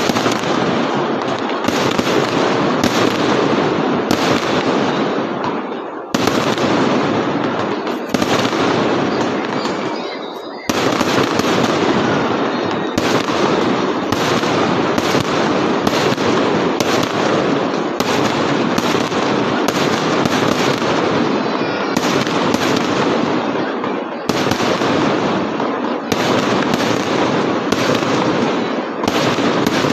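Aerial fireworks exploding in a rapid, near-continuous barrage of bangs and crackles, with brief lulls about six and ten seconds in.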